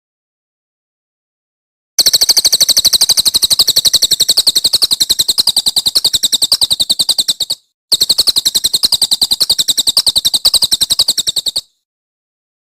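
A songbird's rapid rattling trill of sharp, high notes repeated about a dozen times a second, sung in two long bursts of about five and three and a half seconds with a short break between, used as a masteran training call.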